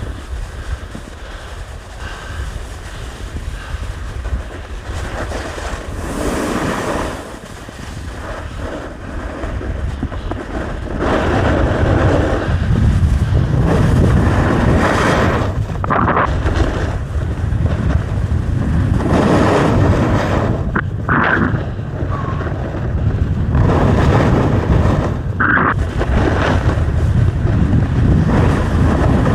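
Wind rushing over the microphone and the hiss and scrape of edges on hard, icy snow during a downhill run. The noise surges every few seconds and grows louder and deeper about a third of the way in.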